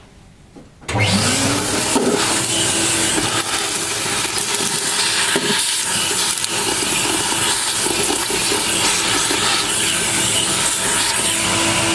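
A vacuum cleaner switched on about a second in, its motor whine rising as it spins up and then running steadily with a loud rush of air as it sucks the debris out of the dust bag bay.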